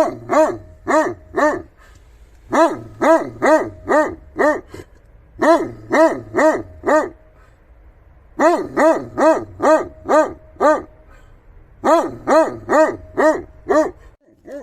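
Polish Tatra sheepdog barking in bouts of four to six loud barks, about two a second, with short pauses between bouts.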